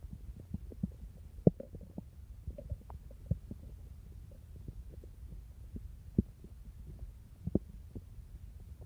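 Stomach growling: a low rumble with irregular short gurgles and pops, the loudest about a second and a half in, around six seconds and near seven and a half seconds.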